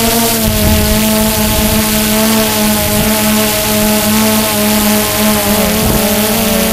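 DJI Phantom 2 quadcopter's electric motors and propellers buzzing steadily, picked up close by the GoPro slung beneath it, the pitch wavering slightly as the motors adjust speed in slow flight.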